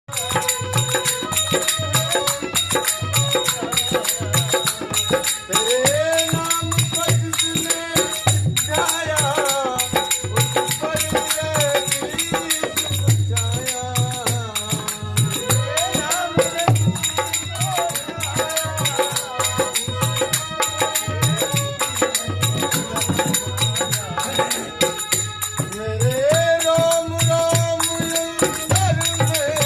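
Devotional bhajan music: a gliding melody over a steady low drum beat, with shaken rattle or tambourine-like percussion running through.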